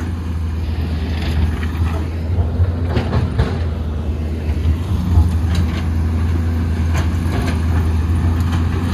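JCB digger's diesel engine running steadily while it digs through rock on a blocked road, with a few short knocks scattered through.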